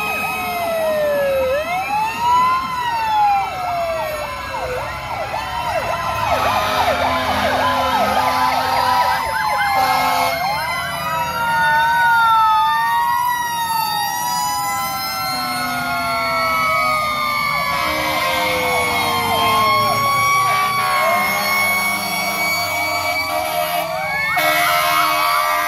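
Several fire trucks and an ambulance sounding their sirens at once, overlapping wails that rise and fall at different speeds, with one long slow fall like a mechanical siren winding down. Steady horn blasts cut in at times, loudest about six to nine seconds in and near the end.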